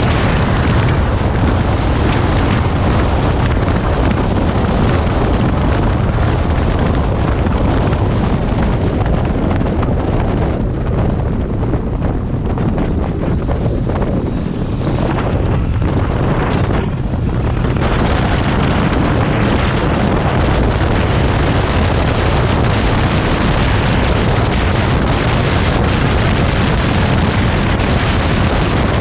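Motorcycle riding at speed, heard as heavy wind buffeting the microphone with engine and road noise underneath. It eases a little for a few seconds about halfway through.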